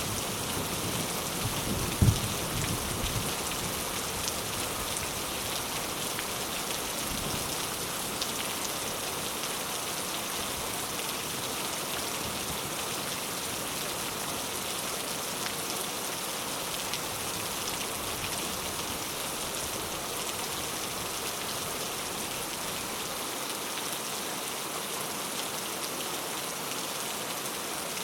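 Steady rain falling on surfaces, a dense even hiss of drops. About two seconds in there is a single sharp low thump, the loudest moment, fading within about a second.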